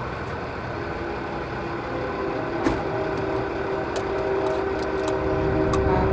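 Diesel semi-truck tractors running as they roll slowly past, with a steady held tone over the engine noise and a single sharp knock about two and a half seconds in. The sound grows louder toward the end.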